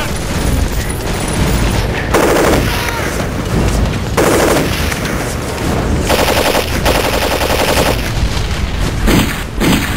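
Battle gunfire: a dense, continuous din of shots broken by several bursts of rapid machine-gun fire.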